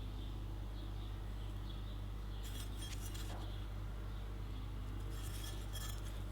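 Steady low electrical hum with two short spells of light crackling clicks, about two and a half and five seconds in, during DC lift-TIG welding with an inverter welder.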